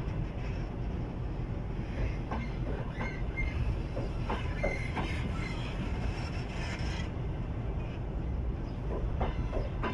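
Double-deck passenger coaches of an arriving train rolling past, their wheels rumbling steadily on the rails, with scattered knocks over rail joints and a few brief high wheel squeals.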